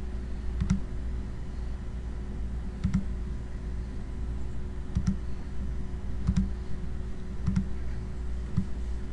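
Computer mouse clicking, about six separate clicks a second or two apart, over a steady low hum.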